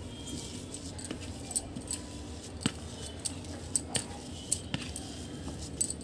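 A hand mixing mashed potato and paneer in a stainless steel plate: scattered light clicks and clinks, irregular and a couple a second, as fingers work the mash against the metal.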